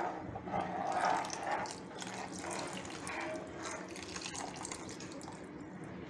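Cornflour slurry being poured into a pot of simmering vegetable soup, with uneven liquid splashing and sloshing that is busiest in the first couple of seconds and then settles.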